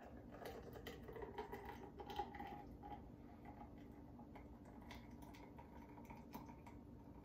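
Faint soft patter and small irregular ticks of thick peach puree pouring slowly from a small cup into a champagne flute, busiest in the first three seconds.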